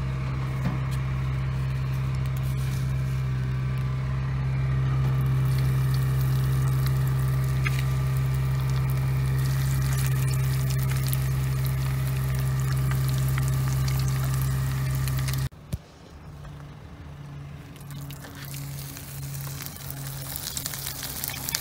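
Oil sizzling in a pan as panko-breaded fish fries, under a loud steady low drone that cuts off abruptly about fifteen seconds in. A softer pulsing low tone follows it.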